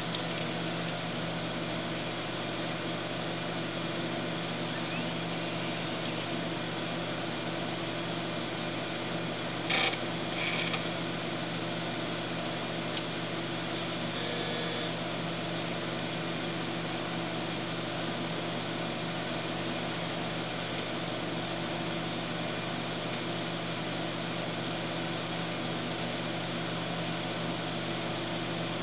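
Steady whir and hum of running computer hardware: the ATX power-supply fan and the SCSI disk, tape and CD drives. About ten seconds in there is a brief click followed by a short chirp, typical of a drive stirring during the boot.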